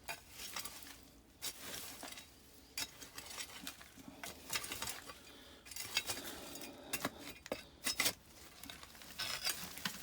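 Rubble being scraped through while digging, with irregular scrapes, knocks and clinks of stones and buried glass, and a cluster of louder knocks a little after halfway.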